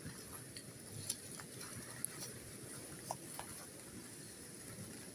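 Faint rustling of leaf litter and ivy in undergrowth, with a few light clicks and snaps of twigs about one, two and three seconds in.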